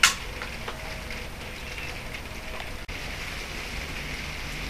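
A single sharp click right at the start, then steady hissing background noise.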